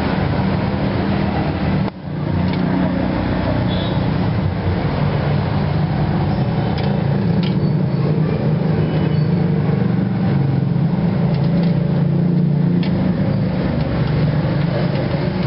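Steady low rumble of street traffic, with a few light clinks of a metal ladle against a steel broth pot.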